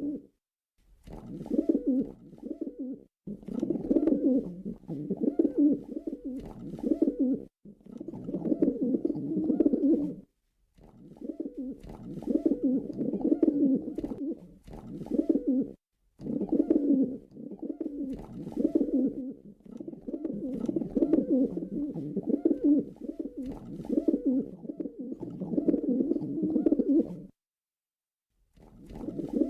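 Pigeon cooing in long, low, throaty bouts lasting a few seconds each, broken by short silent gaps, with a longer pause near the end.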